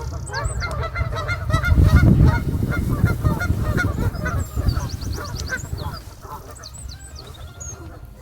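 A flock of geese honking, many short calls in quick succession, fading after about five seconds. Under them is a low rumbling noise that is loudest about two seconds in, and a small bird trills high up a few times.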